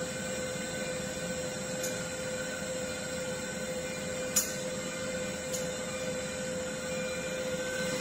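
CK6160Q CNC wheel repair lathe running a turning program, its spindle spinning a wheel while the tool feeds: a steady machine hum with a constant whine. A sharp click about four seconds in, with fainter ones around two and five and a half seconds.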